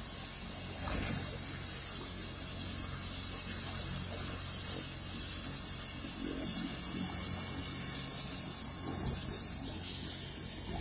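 Helicopter running on the helipad: a steady turbine hiss over a low, even rotor hum.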